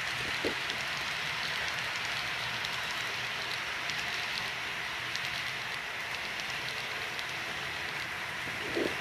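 Model freight train of tank cars and gondolas rolling past on the track: a steady rolling hiss with faint scattered clicks.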